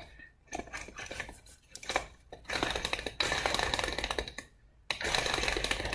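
Passenger-side front locking hub from a 2003 Ford Excursion being turned, giving a gritty metallic rattling and grinding in several runs with short pauses. It sounds pretty bad, a sign of a worn hub.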